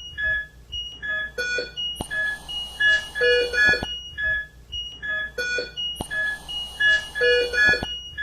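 ICU patient-monitor beeps and alarm tones: short electronic beeps at several pitches, repeating in the same pattern about every four seconds, with a sharp click at the start of each cycle.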